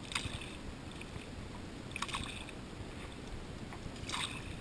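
A canoe paddle dipping and pulling through lake water: three splashy strokes about two seconds apart, over a low steady rumble.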